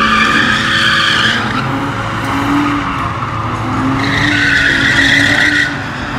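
Nissan 370Z doing donuts under high revs. Its tyres squeal in two long stretches, one at the start and one about four seconds in, over a steady engine note.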